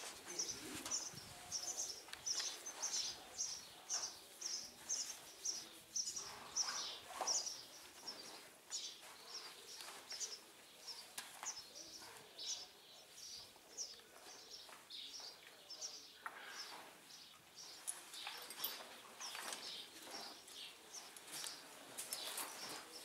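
A small bird chirping over and over, about two short high chirps a second, growing sparser after the first several seconds, over faint outdoor background.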